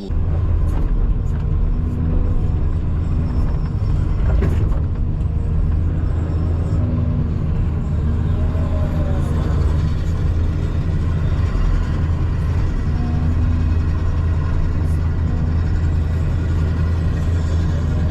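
Excavator's diesel engine running steadily under load, a loud, even low rumble.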